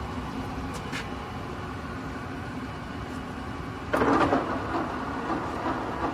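Timemaster gap bed engine lathe running with a steady mechanical hum and rumble, with a light click about a second in and a short, louder rattle around four seconds in, after which it runs a little louder.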